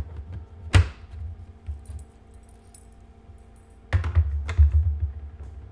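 Plastic incubator parts being handled: a sharp knock about a second in, then a short burst of clattering and rattling near the end.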